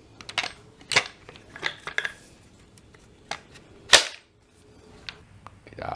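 A stainless Ruger M77 Mark II barreled action being fitted into its black Zytel synthetic stock and handled: a string of sharp clicks and knocks, the loudest about a second in and just before four seconds in.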